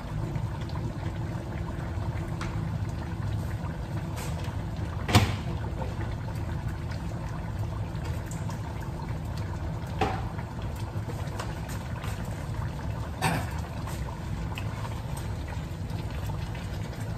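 Chicken afritada sauce boiling steadily in a steel wok, a continuous bubbling and hissing over a low hum. Three short sharp knocks come through it, about 5, 10 and 13 seconds in.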